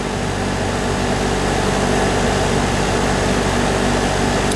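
Outdoor air-conditioner condensing unit running steadily, its condenser fan blowing with a low hum underneath. The unit is now starting and staying on after a new contactor was fitted.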